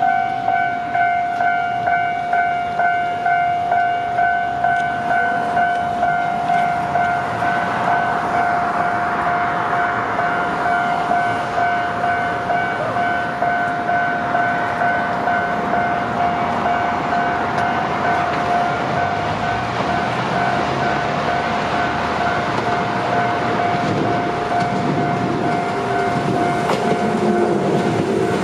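A Japanese level-crossing warning bell clangs steadily, about one and a half strikes a second, while a Shizuoka Railway electric train draws near and passes with growing rail and wheel clatter. A lower motor whine comes in near the end.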